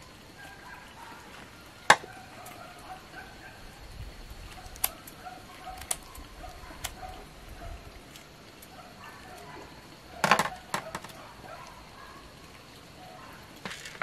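Hand work on leaf-wrapped sticky-rice cakes: leaves crackling and string being handled, with a few sharp clicks and snaps, the loudest about two seconds in and a quick cluster around ten seconds. Faint bird calls come and go in the background.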